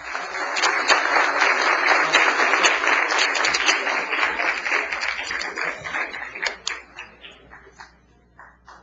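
Legislators applauding in the chamber. The clapping is dense at first, then thins to scattered claps and dies away over the last couple of seconds.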